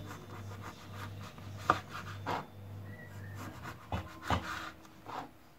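A kitchen knife sawing through a half-baked fekkas log, its crumbly crust scraping, with about five sharp knocks as the blade comes down on a plastic cutting board. A steady low hum runs underneath.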